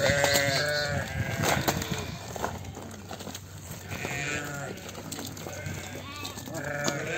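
Ewes and lambs bleating, many overlapping wavering calls at higher and lower pitches, loudest at the start, again about four seconds in and near the end. The lambs are penned apart from the ewes and the two sides call to each other across the fence.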